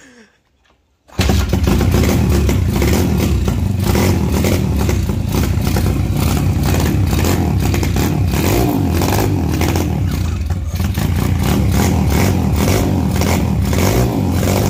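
Brand-new Apollo RFZ 150 dirt bike's four-stroke single-cylinder engine catches on its first start, with the choke on, about a second in, and then runs loudly.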